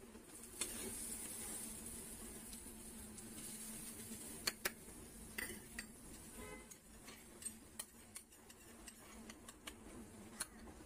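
Ghee-fried cashews and raisins tipped from a small metal pan into a kadai of sweet pongal, with a faint sizzle for the first few seconds. A steel spoon then clicks and scrapes against the metal pans as they are stirred in.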